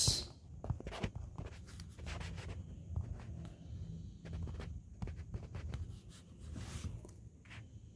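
Stylus strokes on a tablet, light tapping and scratching as a word is handwritten, over a low steady hum.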